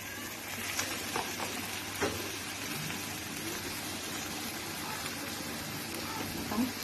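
Onion, capsicum, corn and cooked chicken sizzling steadily in oil and butter in a frying pan, with a couple of light clicks about one and two seconds in.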